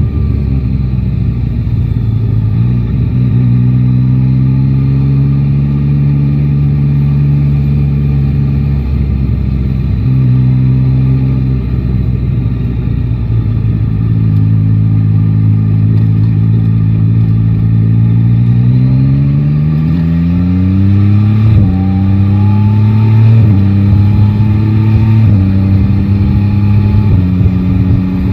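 Yamaha Tracer 9 GT's three-cylinder engine running at steady revs, then accelerating hard about two-thirds of the way in and pulling up through the gears, with four quick upshifts about two seconds apart. A low wind rumble runs underneath.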